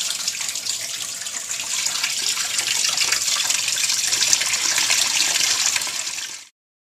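Water running and splashing down through a small homemade water-powered model sawmill, driving its gears and saw; it is a steady rushing hiss that cuts off suddenly about six and a half seconds in.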